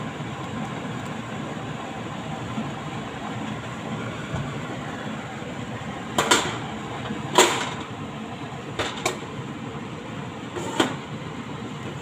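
Steady rumbling background noise in a kitchen, with five sharp clicks or knocks in the second half, the two loudest about six and seven seconds in.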